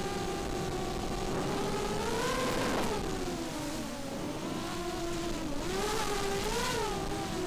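FPV racing quadcopter's four SunnySuky 2204 2300kv brushless motors with DALPROP 5045 bullnose props whining in flight, as picked up by the onboard action camera, over a steady rush of air and propeller noise. The pitch climbs about two seconds in, sags, then swings up and down again near the end as the throttle changes.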